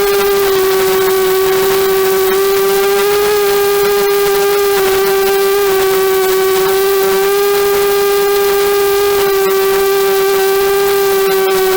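250-size FPV racing quadcopter's electric motors and propellers whining at a nearly constant pitch, held at steady throttle.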